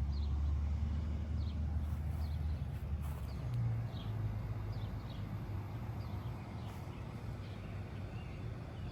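A small bird chirping over and over with short, falling notes, over a steady low hum.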